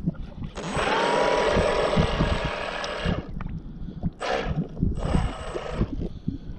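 A Pro Boat radio-controlled speedboat's motor runs at speed with a high steady whine over rushing water. It starts about half a second in, lasts about two and a half seconds with its pitch rising early on, and comes again briefly at about five seconds as the boat passes. Wind rumbles on the microphone throughout.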